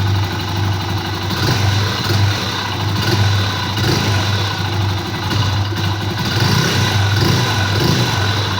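Honda Pop motorcycle's small single-cylinder four-stroke engine running with a loud abnormal noise, its speed rising and falling a few times. The noise is piston slap: the piston skirt was knocking in a deeply scored cylinder, with play in the connecting rod as well.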